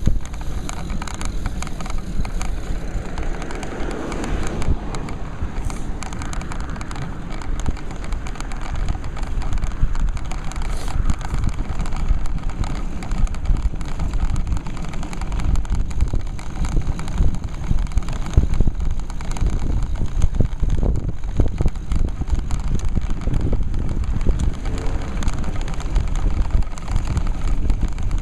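Wind buffeting and road vibration picked up by a camera mounted on a road bike's handlebars while riding: an uneven rush of noise, heaviest in the low end, with frequent small knocks and rattles from bumps in the road.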